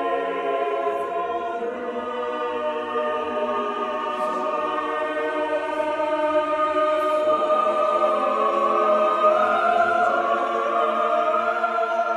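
Background choral music: a choir holding long, slowly changing chords that grow a little louder in the second half.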